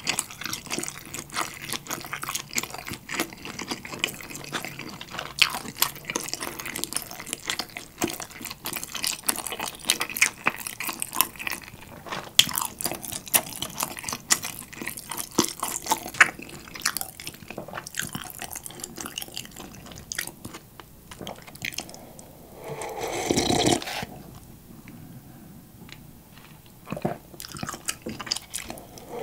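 Close-miked chewing of a soft dumpling, with many small wet smacks and clicks. Near the end come louder slurps of broth drunk from a cup of instant ramen.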